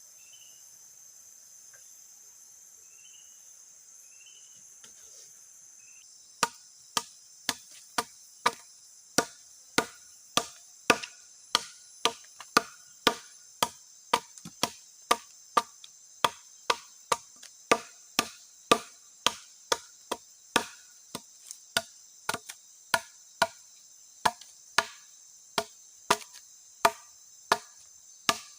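Wood being chopped with steady, regular blows, about three every two seconds, starting about six seconds in. Insects and crickets call throughout.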